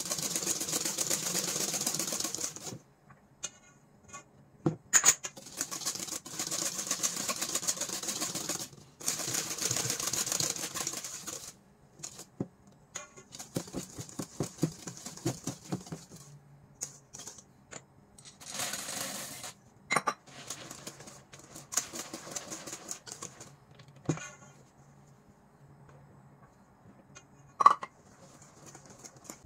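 Wire whisk beating thick chocolate batter in a stainless steel bowl: rapid, even clicking and scraping of the wires against the steel in bursts of a few seconds. In between and later come scattered clinks and knocks, with one sharp knock near the end.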